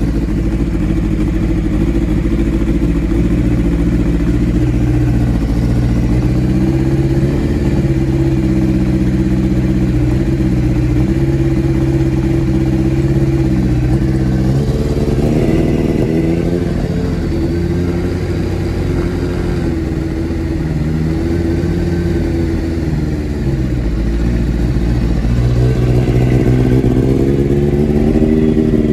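Kawasaki Ninja four-cylinder sportbike engine running on an aftermarket exhaust while warming up on choke, unevenly, with a misfire the owner hears as not all cylinders firing after a spark plug change. From about halfway in, the revs rise and fall several times.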